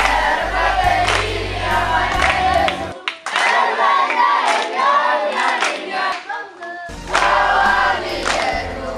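A group of children singing together in chorus, with hand claps.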